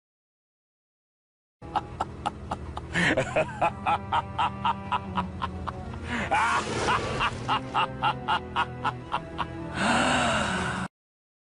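A short music clip from a sound-effects compilation, with a steady beat of about three strokes a second, that cuts off suddenly near the end.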